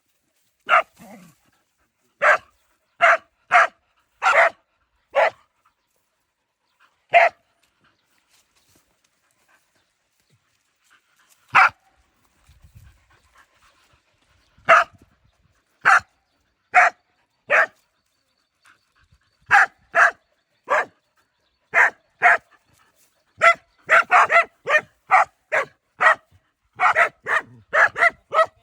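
Several dogs barking at a snake in short, sharp barks that come in bouts. There is a lull of a few seconds partway through, then the barks come faster and overlap near the end.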